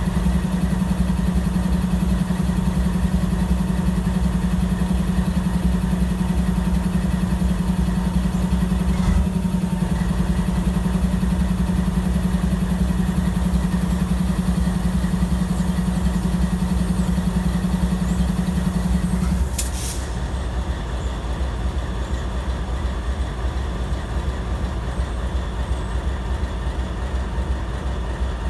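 Diesel freight locomotive running steadily in a rail yard, a strong steady hum over a low rumble. About two-thirds of the way through the hum cuts off suddenly with a click, leaving a quieter rumble.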